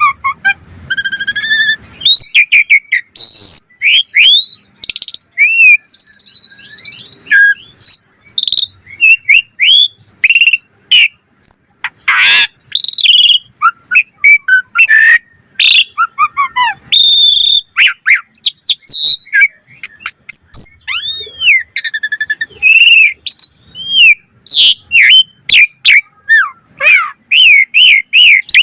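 Asian pied starling singing vigorously in full, varied song: a rapid, unbroken string of whistles, slurred chirps that rise and fall, and sharp clicks.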